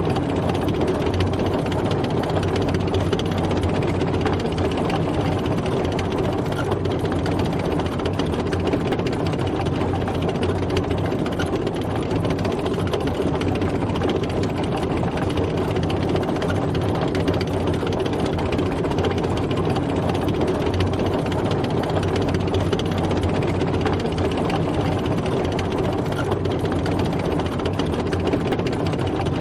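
Tank driving, its engine running steadily with no change in pace.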